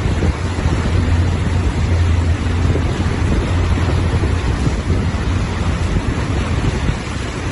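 A car driving through deep floodwater: a steady rush and splash of water against the car, over a constant low hum of the moving vehicle.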